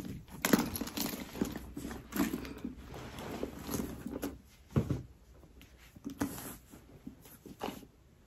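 Handling noise as a leather crossbody bag is slung over the shoulder and settled in place: rustling of clothing and strap with light, irregular clicks. There is one stronger soft thump just before five seconds in, then fainter, sparser rustles.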